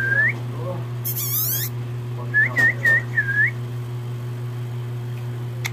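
A person whistling: one long note that swoops up at the start, then four quick swooping notes a couple of seconds in. A short hissy rustle comes about a second in, over a steady low hum.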